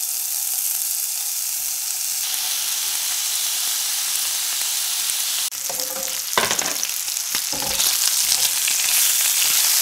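Pieces of bacon sizzling in a hot nonstick frying pan. The sizzle breaks off for an instant about halfway and comes back louder, with a spatula scraping and stirring the bacon around.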